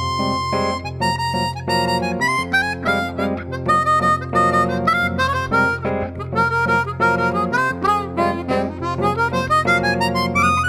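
Chromatic harmonica playing a fast melody of quick rising and falling runs over a steady, sustained low accompaniment.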